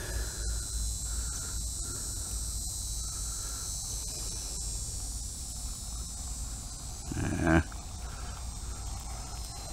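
Insects keep up a steady, high-pitched outdoor chorus. About seven seconds in, a man makes one short vocal sound, like a hum.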